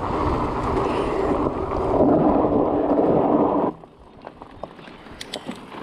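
Wind buffeting the bike-mounted camera's microphone, mixed with tyre rumble over a rocky trail on a fast descent, cutting off abruptly a little under four seconds in. After that only a few faint clicks are left.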